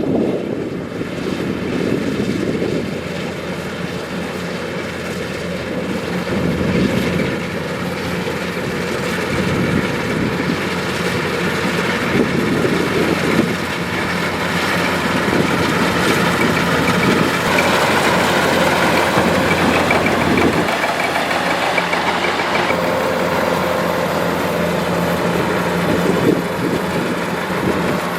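Kubota DC-105X combine harvester running: its diesel engine and machinery give a steady, loud mechanical drone, which changes in tone about two-thirds of the way through.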